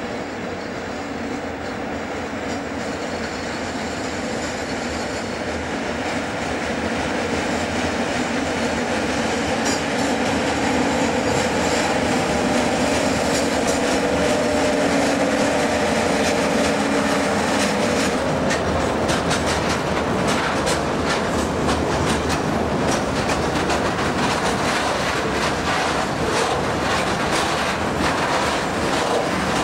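SNCF BB 16500 electric locomotive drawing near and passing with a steady hum, growing louder over the first third. From a little past halfway, the wagons of a heavy steel freight train roll by with a rapid, continuous clickety-clack of wheels over rail joints.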